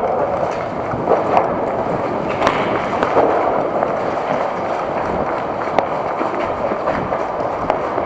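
Continuous rustling, scuffing noise with a few sharp clicks scattered through it.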